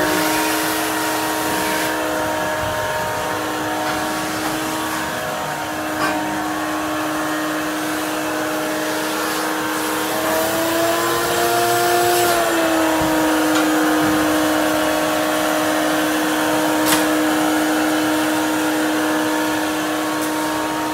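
Vacuum cleaner motor running steadily with a whining hum. Its pitch rises a little and settles back about ten to twelve seconds in, and there are a couple of faint knocks.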